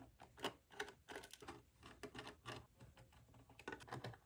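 Faint, irregular clicking of a precision Torx screwdriver turning out TR6 security screws from the M2 Mac Mini's metal inner plate.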